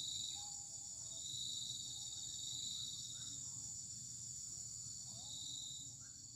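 A chorus of insects buzzing steadily at a high pitch, with a lower buzz that swells and fades every second or two.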